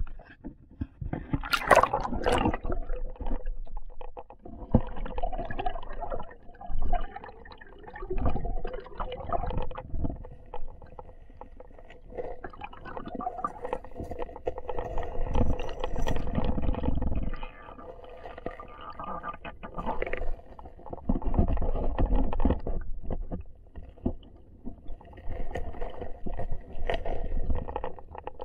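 Muffled underwater rumbling and sloshing of river current around a submerged action camera, rising and falling in irregular swells with handling knocks; a loud sharp noise about two seconds in.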